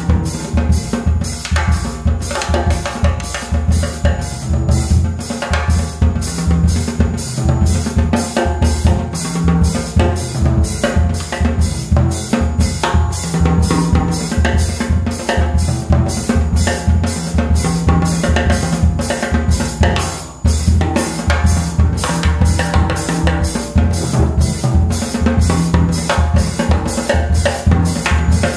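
Jazz quartet playing a samba groove, the drum kit up front with a fast, steady pattern of cymbal and snare strokes over walking bass notes, with piano or saxophone tones in the middle.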